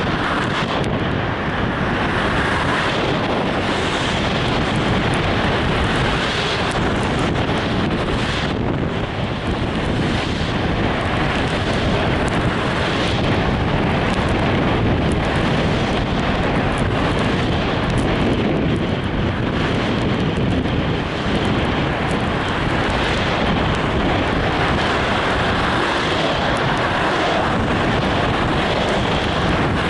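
Steady wind rushing over the microphone mixed with the noise of a moving vehicle.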